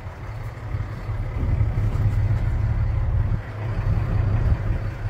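A boat's engine running steadily under the deck, heard as a low rumble that grows a little louder about a second and a half in.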